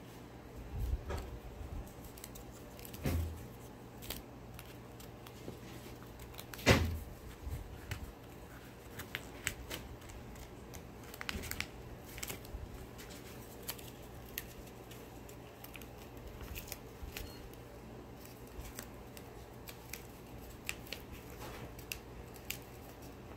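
Sheets of paper being folded and handled at a wooden table: scattered rustles and small taps, with one sharp knock about seven seconds in.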